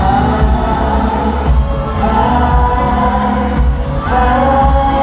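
Live band performing a pop song: held sung notes with backing voices over bass and drums.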